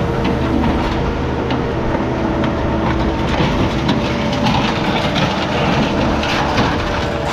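Heavy scrap-yard machinery running steadily, a low engine drone with scrap metal clanking and rattling throughout, busiest past the middle.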